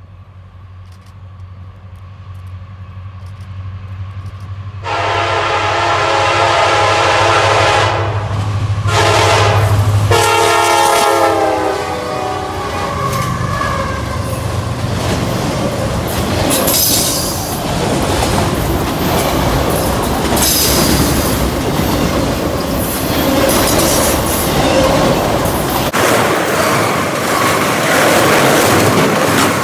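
Diesel freight locomotive approaching, its engine hum growing louder, then its air horn sounding three blasts: a long one, a short one and another long one that drops in pitch as the locomotive passes. A long train of autorack cars then rolls by in a loud steady roar of wheels on rail, with clickety-clack over the rail joints.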